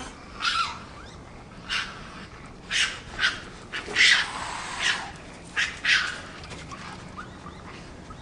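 A dog barking in short, sharp barks at irregular intervals, about eight in all.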